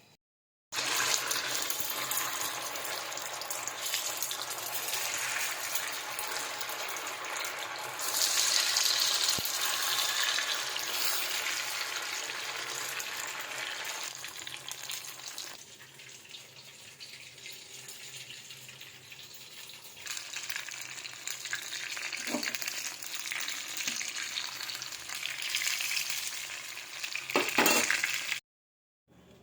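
Food sizzling as it fries in a pan, with stirring. The sizzle swells about a third of the way in, dies down in the middle and builds again, with a few sharp clicks near the end. It cuts in and out abruptly.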